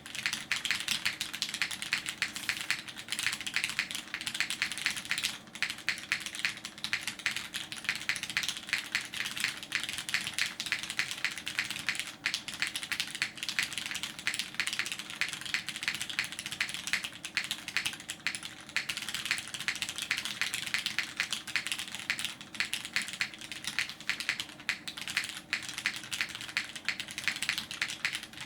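Fast, continuous typing on a custom mechanical keyboard with lubed vintage black linear switches in an aluminium-plate LZ Reborn Edition case, topped with GMK Hyperfuse keycaps: a dense stream of key clacks with no pause.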